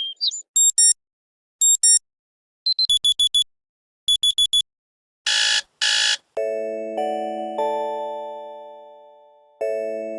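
Nokia T26 preset alert tones played one after another. First come several short electronic beep patterns and two buzzy tones. Then a chime of three rising notes, each ringing and fading, begins and starts over about three seconds later.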